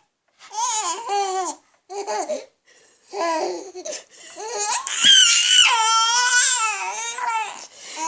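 Baby babbling and laughing: three short high-pitched vocal sounds, then one long, wavering squeal-like babble lasting about four seconds.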